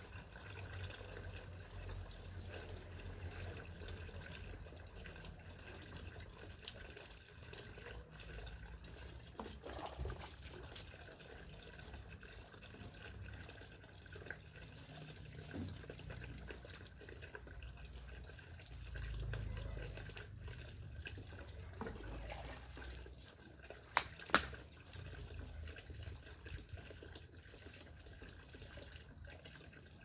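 Tap water running in a thin steady stream into a plastic basin. Two sharp clicks close together late on.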